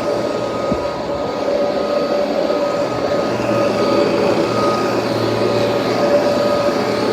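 1986 Kirby Heritage II upright vacuum cleaner running steadily: a constant motor whine over the rush of air.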